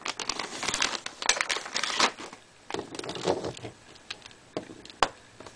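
Small plastic Lego pieces and a plastic bag being handled: rustling and crinkling with quick clicks and rattles. It is busiest over the first two seconds, comes again around three seconds in, and ends with a couple of single clicks.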